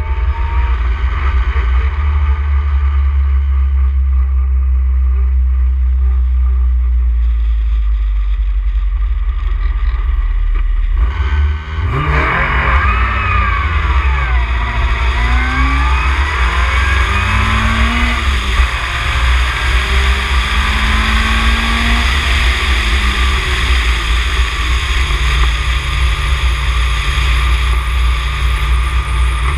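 Ginetta G20 race car's engine heard from the open cockpit over heavy wind rumble: running steadily at low revs for about the first eleven seconds, then revving up and dropping back again and again as the car accelerates up through the gears.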